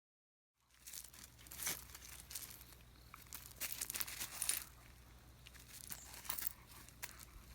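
Dog clothes rustling and crinkling in irregular bursts as a beagle squirms and pulls at them to get them off. It starts about half a second in, over a faint low hum.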